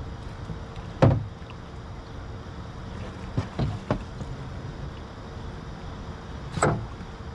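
Several knocks and thumps against the boat: a sharp loud one about a second in, a quick cluster of smaller ones around the middle, and another strong one near the end, over a steady low hum.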